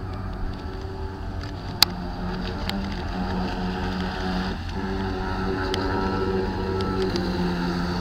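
Battery-powered Admiral 40-inch RC speedboat running on the water, its electric motor giving a steady whine that dips briefly about halfway through. A few sharp clicks stand out over it.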